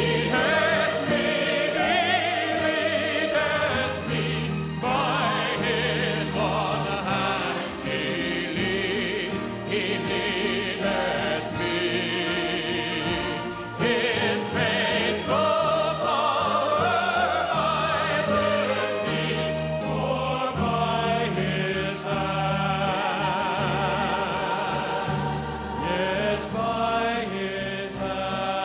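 A large church choir singing.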